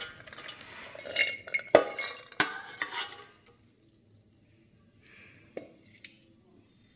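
Soaked kidney beans being scooped and tipped into a pressure cooker: a metal scoop clinks and knocks against the cooker four or five times as the wet beans clatter in, over the first three seconds or so, with one small knock later.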